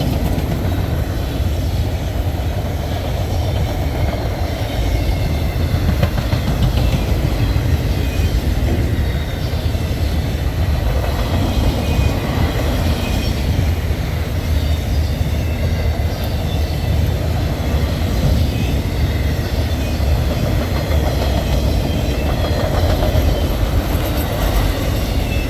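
Freight train rolling past at speed: a steady, loud rumble of steel wheels on rail, with faint high wheel squeal in the background.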